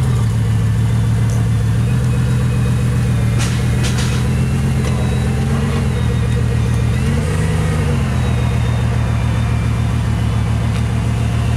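Bugatti Veyron Grand Sport Vitesse's quad-turbocharged W16 engine idling steadily, with a brief rise in revs a little past halfway.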